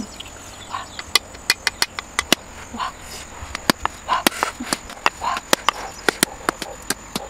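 Sharp, irregular taps of a metal cleaver knocking on the thick shell of an ostrich egg to crack it, two to three strikes a second.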